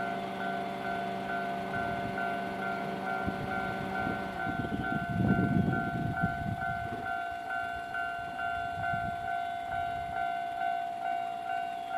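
Japanese level-crossing warning bell ringing in an even, repeating pulse of about two to three strikes a second. About four seconds in, a Nankai Main Line train passes over the crossing, its wheels rumbling loudly for a couple of seconds under the bell.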